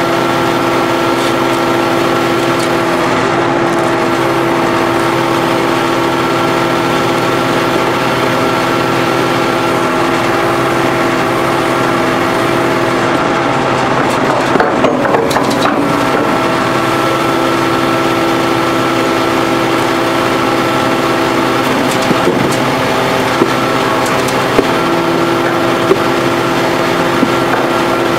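Hydraulic power pack driving an H-beam hydraulic pile extractor, running as a steady machine drone of several tones. The drone turns rougher and unsettled about halfway through and again a few seconds later, as the extractor's cylinders change stroke. A few sharp knocks come in the second half.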